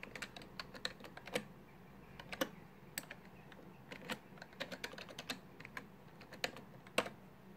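Computer keyboard being typed on: irregular, sharp key clicks, a few at a time with short pauses between.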